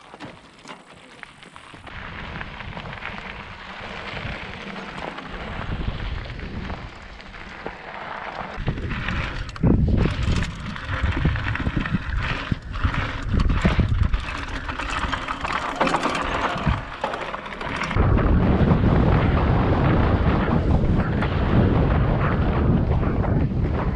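Downhill mountain bike riding fast down a gravel trail: wind rumbling on the camera microphone with tyre crunch and rattles and knocks from bumps. It grows louder as speed builds, jumping up about ten seconds in and again after about eighteen seconds.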